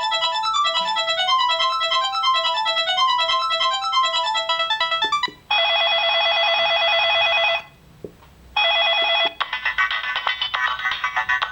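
Samsung SGH-C130 mobile phone's built-in polyphonic ringtones playing. A quick electronic melody stops about five seconds in. Then comes a steady buzzing ring tone in two bursts with a short pause between, and a new ringtone of rapid repeated notes starts near the end.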